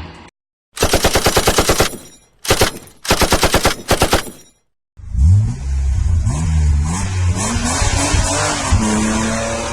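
Automatic gunfire in three rapid bursts, about nine shots a second. After a short gap, an engine starts revving, its pitch rising and falling.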